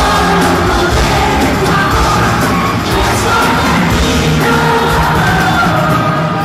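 Live pop concert heard from within the audience: a singer with the band playing, and the crowd yelling and singing along.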